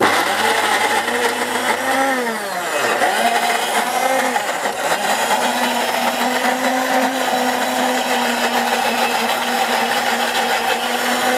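Orpat 1200-watt mixer grinder motor running at full speed, grinding chunks of ginger and garlic into paste in its steel jar with no water added. Its pitch sags twice in the first few seconds as the load bites, then holds steady.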